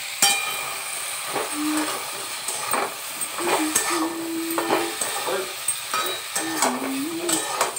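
Chunks of pumpkin, brinjal, radish and tomato sizzling in oil in a steel kadai as they are stir-fried, with repeated scrapes and clinks of the spatula against the pan. A faint wavering low hum comes and goes behind it.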